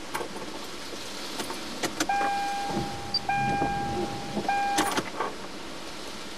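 Clicks and knocks around a vehicle, with a steady electronic warning chime sounding for about three seconds and breaking off twice.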